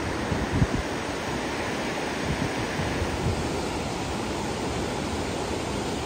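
Steady rush of river water pouring over a concrete weir and through the cascades of a channelled mountain river. A few low gusts of wind buffet the microphone in the first second.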